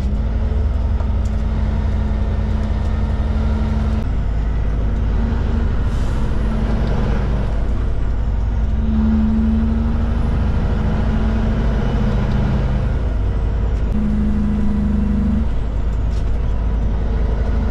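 Kenworth K200 cab-over truck's Cummins diesel engine running as the truck drives through town, heard from inside the cab, its note shifting in steps as it slows for and pulls away from roundabouts. A brief hiss comes about six seconds in.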